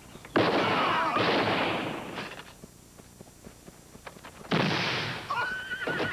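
Gunfire in two bursts about four seconds apart, each starting sharply and fading away. A horse whinnies after the second burst.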